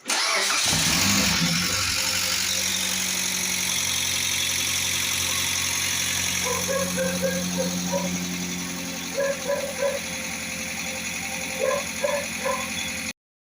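Mitsubishi Pajero TR4 engine running at idle with a 'tec tec tec' ticking from its valve lifters (tappets). It is lifter knock: a clogged oil passage has left the tappets running dry.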